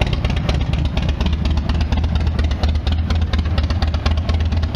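2016 Harley-Davidson Dyna Wide Glide's Twin Cam 103 V-twin idling steadily through Vance & Hines Big Radius exhaust pipes, an even run of loud exhaust pulses.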